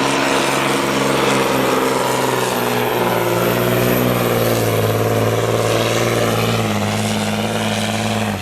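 Pulling truck's engine running hard under full load while dragging the sled on a test pull, pitch sagging slightly and picking up again near the end before the sound drops away.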